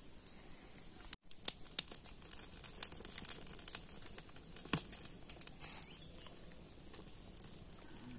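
Wood campfire crackling with scattered sharp pops, over a steady high-pitched whine, as singed fur is rubbed and scraped off a small animal held by the flames. The sound drops out for a moment just over a second in.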